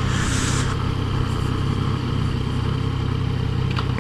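Yamaha FJ-09 motorcycle's 847 cc inline-three engine running steadily at low revs while the bike rolls slowly in traffic, heard through a helmet-mounted camera. A brief hiss of wind noise comes right at the start.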